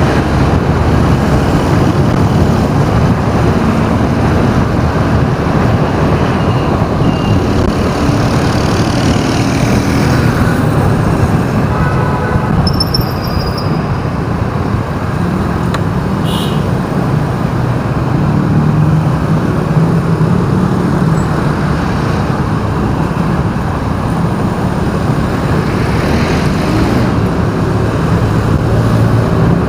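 City street traffic heard while driving: a steady rumble of engine and road noise, with a brief high squeak near the middle.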